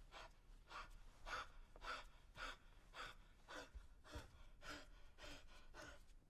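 A man breathing hard in quick, quiet gasps, about two breaths a second.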